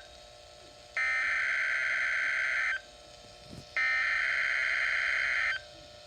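Emergency Alert System SAME header data bursts on NOAA Weather Radio: two harsh, buzzy two-tone digital warbles, each nearly two seconds long, with a one-second pause before each. They encode the coming Tornado Watch alert for the listed counties.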